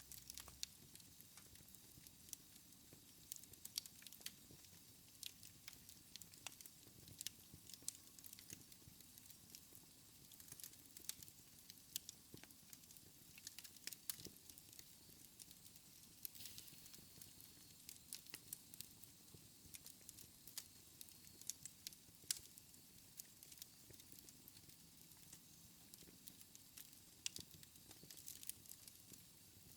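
Wood fire in a fireplace crackling quietly: irregular sharp pops and snaps, a few every second, over a soft steady hiss.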